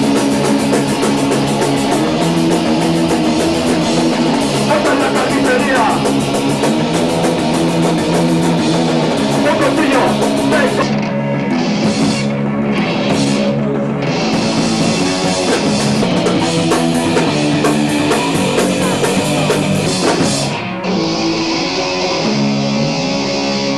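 Live rock band playing: guitars and drums with a steady bass line. The high, hissing part drops out for a few moments about halfway through, and the music eases slightly near the end.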